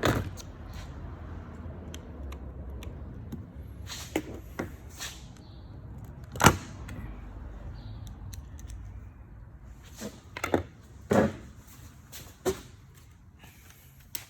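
Scattered clicks and knocks of hand tools and plastic pressure washer gun parts being handled, loudest about six seconds in, with a few more near the end.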